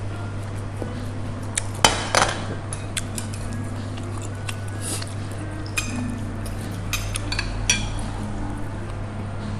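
A fork and chopsticks scraping and clinking against ceramic plates as leftover pad thai is gathered up, with scattered sharp clinks and a louder clatter about two seconds in, over a steady low hum.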